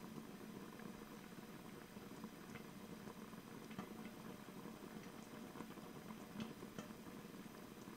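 Faint bubbling of the wine-and-water broth simmering inside a lidded enamelled cast-iron Staub braiser, a steady low seething with small scattered pops, as it heats on medium until steam starts to escape from under the lid.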